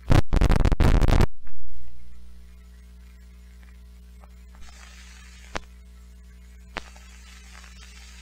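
Film projector's sound system running over the countdown leader: a loud burst of noise lasting about a second at the start that fades out, then a steady mains hum with three faint clicks from the soundtrack.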